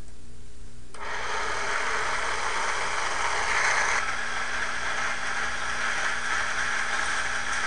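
A K'nex roller coaster's battery motor switches on about a second in and runs steadily, driving the plastic chain lift.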